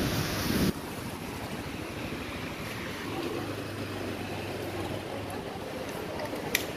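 Street traffic noise with wind buffeting the microphone, which drops off suddenly after the first split second to a steadier, quieter hum of traffic, with a faint low engine hum in the middle and a single sharp click near the end.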